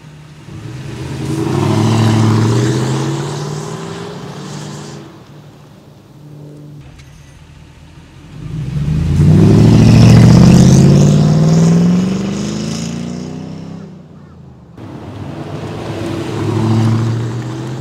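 A 2002 Toyota Tundra's 4.7-litre V8 pulling away and accelerating, its engine note rising then fading, heard in three back-to-back clips. The first clip is on the stock exhaust. About seven seconds in comes a clip on an MBRP 3-inch resonator-back exhaust, which is louder. Near the end the stock exhaust returns.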